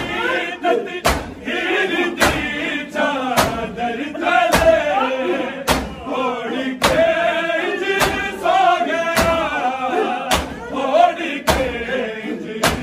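Men chanting a Shia mourning lament (noha) in unison, with a sharp beat struck about once a second to keep time.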